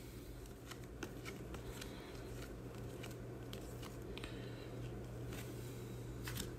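Faint rustling and soft scattered ticks of trading cards being slid and flipped through by hand, over a steady low hum.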